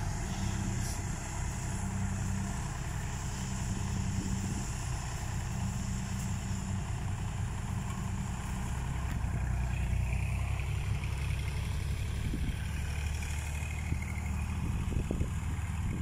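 A Kubota farm tractor's diesel engine running steadily, close by, with an even low drone.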